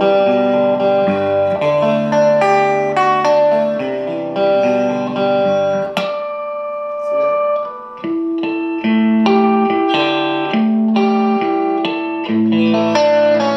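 Schecter electric guitar played through the Dynamo Flight Rig's tube preamp on its clean channel, with the guitar's volume rolled back for a clean tone. Chords and notes ring out and change every second or so. A sharp strum comes about halfway through, then a short quieter stretch before lower chords come back in.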